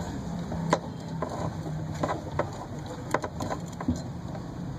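Scattered sharp clicks and knocks of hand tools on metal as a car's fuel pump is worked loose, over a steady low hum.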